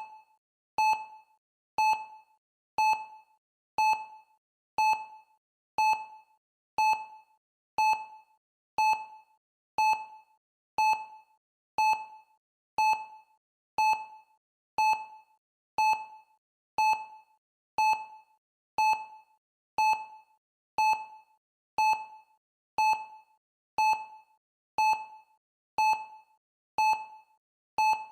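Countdown timer sounding a short electronic beep once every second. Each beep is a clear mid-pitched tone that starts sharply and dies away quickly.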